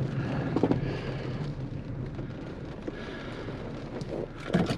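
Thunder rumbling and slowly fading away, with a few sharp knocks near the end.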